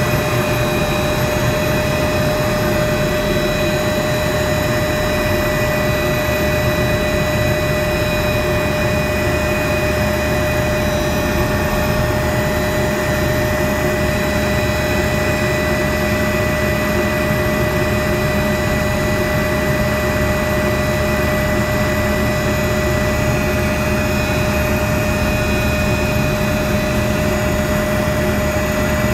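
Helicopter engine and rotor heard from inside the cabin: a loud, steady whine over a dense rumble as it lifts off and climbs.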